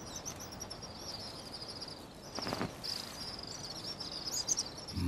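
Natural outdoor ambience: insects chirping in a high, pulsing band over a faint hiss, with one short, louder sound about two and a half seconds in.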